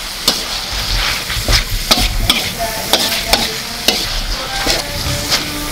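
Metal spatula scraping and knocking against a wok about twice a second as sliced pork and oil palm mushrooms are stir-fried, over a steady sizzle of frying.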